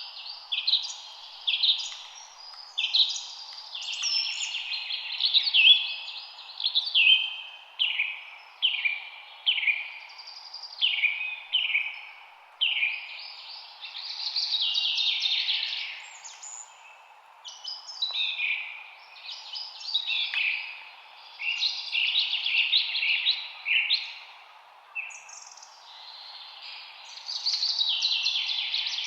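Songbirds singing: a continuous run of varied, quick chirping and warbling phrases, one after another with short gaps, over a steady low background hiss.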